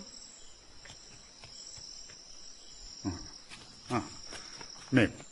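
Crickets chirring steadily at a high pitch. Three brief voice sounds break in about three, four and five seconds in.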